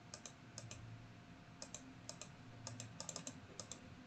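Faint computer keyboard typing: scattered single keystrokes and short runs of clicks, busiest about three seconds in.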